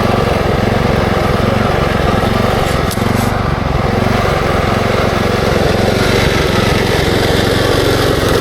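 Small air-cooled engine of a Kubota SPJ400 walk-behind rice transplanter running steadily at idle.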